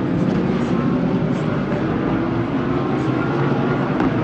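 Engines of IMSA sports-prototype and GT race cars running together on track, a steady dense mixture of engine noise without one distinct pass-by.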